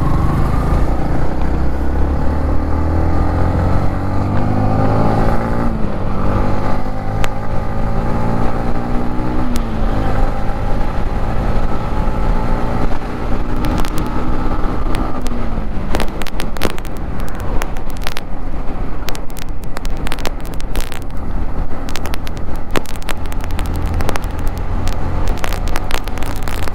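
Motorcycle engine under way with wind noise on the microphone. The engine pitch climbs through the gears and drops back at three shifts. In the second half the engine fades under wind buffeting and frequent crackles.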